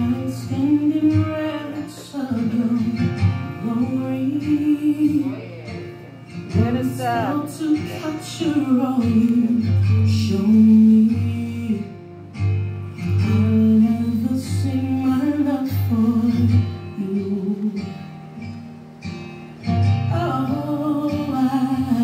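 Gospel song playing: a lead voice singing over guitar and a steady bass line.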